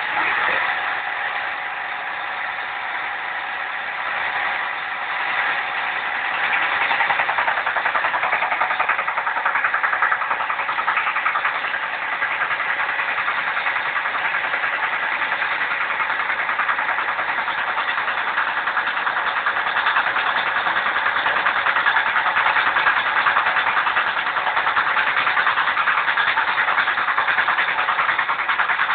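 Homemade, motor-driven axle resplining rig working a steel Honda Accord CV axle shaft: a steady metallic rasp of the tool cutting the unheated steel, which grows louder and denser about six seconds in and then holds.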